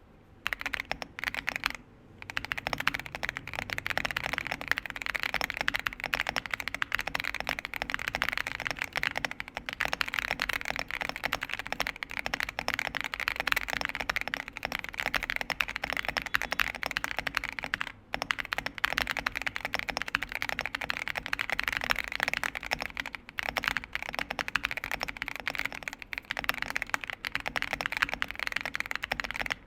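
Continuous typing on a Zuoya GMK87 mechanical keyboard with stock MMD Cream linear switches, PBT keycaps, a polycarbonate plate, gasket mount and full foam dampening: a dense stream of keystrokes. Typing pauses briefly about two seconds in and again around eighteen seconds.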